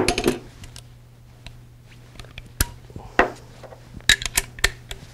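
Metal hand tools clattering on a wooden workbench as a T-handle wrench is set down, then a single sharp click and, near the end, a quick run of sharp metallic clicks as a socket is fitted onto a torque wrench.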